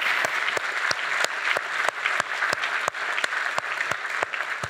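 Audience applause, a dense patter of many hands. One nearer person's claps stand out clearly on top of it, about three a second.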